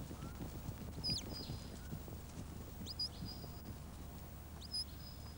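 A high, clear whistled call, a quick upward sweep ending in a short held note, repeated about every two seconds, over faint low outdoor rumble.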